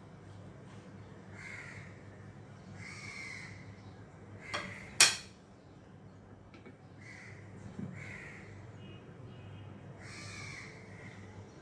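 A crow cawing, about five harsh calls spread a second or two apart, with a single sharp clack about five seconds in.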